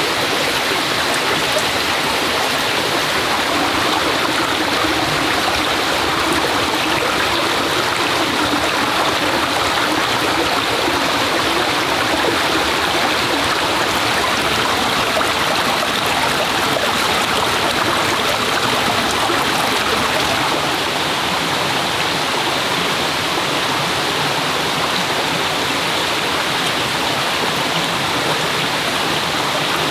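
Forest stream rushing steadily, a loud, even wash of flowing water.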